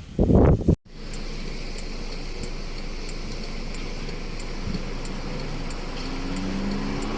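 Steady hiss of rain, with faint high ticks at an even pace, about one and a half a second. A low engine hum comes in near the end.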